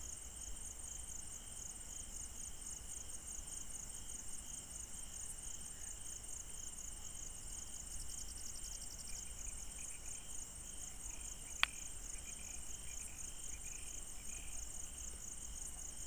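Crickets chirping in a steady, finely pulsed high trill, with a second, lower trill beneath it. A single sharp click comes about two-thirds of the way through.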